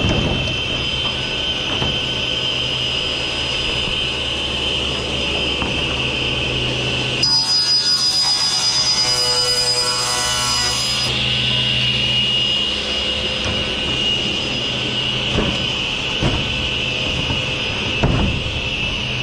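Sliding table saw running and cutting 1/4 inch plywood, with a louder stretch of blade cutting through the sheet lasting about four seconds in the middle. A few knocks near the end as the plywood is handled.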